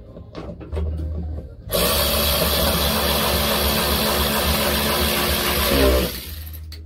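Small cordless power tool running steadily for about four seconds against the screws of a pickup's door trim panel, then winding down with a falling pitch. A few light knocks come before it starts.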